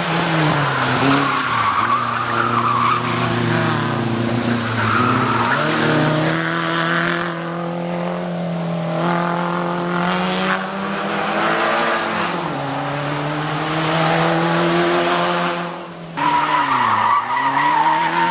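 Small Group N 1300–1600 cc rally hatchbacks racing uphill past one after another, their engines revving hard, pitch dropping and climbing again as they lift and shift through the bends, with tyres squealing. The sound cuts abruptly to another car near the end.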